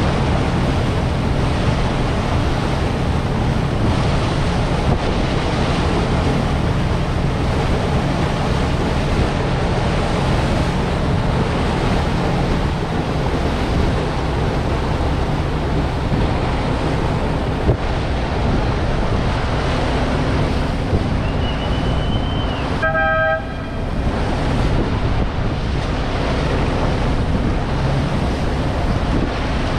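A Chao Phraya express boat's engine running steadily under the rush of wind on the microphone and water along the hull. About three-quarters of the way through, a brief high pitched tone sounds once.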